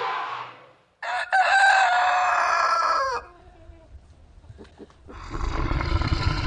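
A rooster crowing once, a loud call of about two seconds. Before it the end of another pitched animal call fades out, and about five seconds in a low, rough sound begins.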